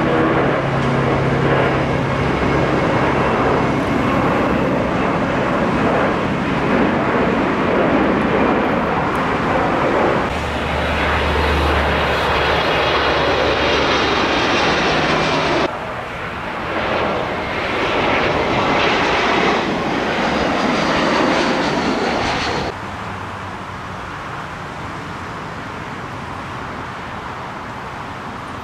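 Jet airliner engines running loud as planes take off and fly overhead, the sound jumping abruptly several times as the clips change. From about two-thirds of the way through it drops to a quieter, steadier jet hum.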